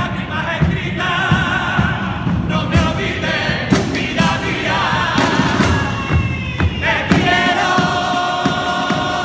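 Male carnival choir singing in full chorus over guitar and low drum beats. They rise to a long held final chord about seven seconds in.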